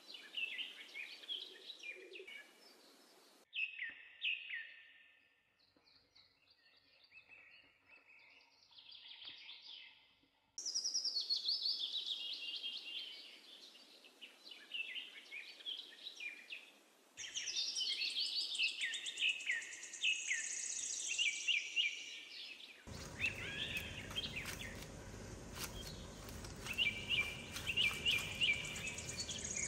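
Birds chirping and trilling in quick, dense phrases, in stretches that change abruptly every few seconds. From about two-thirds of the way through, a steady noise lies under the birdsong.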